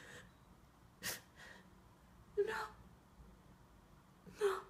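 A woman crying between lines: a sharp intake of breath, then two short sobbing gasps, each with a brief catch in the voice.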